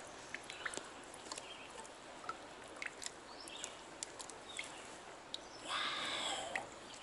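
Faint outdoor ambience: a low, even hiss with scattered small clicks and ticks, and a brief louder breathy rush of noise about six seconds in.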